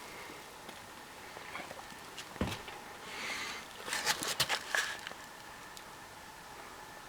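Soft scuffling with a few sharp clicks, a quick cluster of them about four seconds in, as animals move about close to the microphone.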